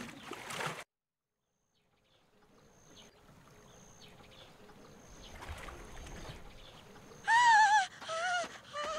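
A muffled water sound cuts off suddenly within the first second, followed by a moment of silence and faint outdoor ambience that slowly grows. Near the end a woman cries out: three high-pitched calls with a wavering pitch, the first the longest and loudest.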